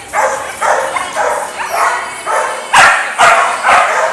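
Dog barking over and over, about two barks a second, louder in the second half.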